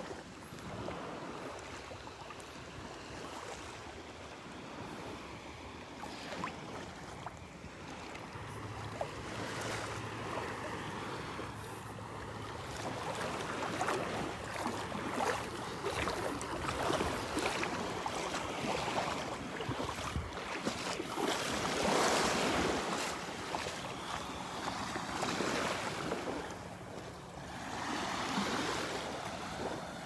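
Small, gentle waves of the Gulf of Mexico lapping and washing onto a sandy beach. The washes grow louder past the middle.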